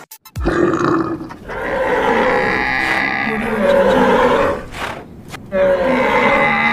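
Animal call sound effects: several long, low moo-like lowing calls with short pauses between them.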